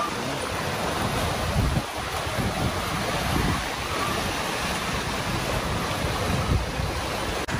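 Wind buffeting the microphone in uneven gusts over the steady rush of choppy sea around a sailing catamaran under way.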